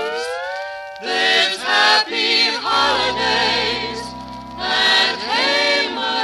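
Old-style pop song with singing voices and band: pitch slides upward at the start, short accented chords come about a second in, then a long held chord over a bass note and another upward slide near the end.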